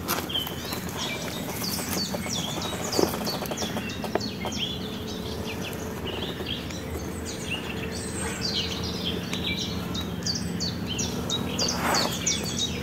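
Small songbirds chirping and singing without pause, a quick run of short high notes. A couple of sharp knocks come a few seconds in, and a low steady hum sets in about halfway.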